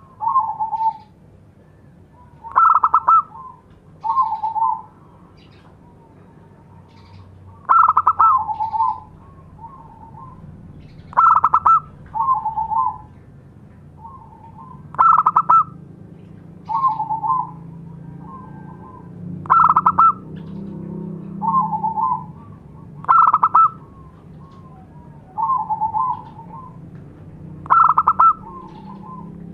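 Zebra dove (perkutut) singing its cooing song: short phrases repeated every few seconds, each opening with a higher, louder note followed by lower rolling coos.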